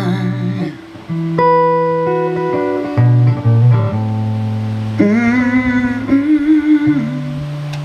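Live blues ballad: a sung word is held and ends, then a guitar plays a fill of single plucked notes over low sustained notes.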